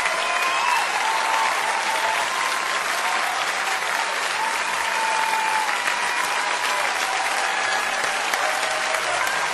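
Crowd applauding steadily, with faint drawn-out wavering tones above the clapping.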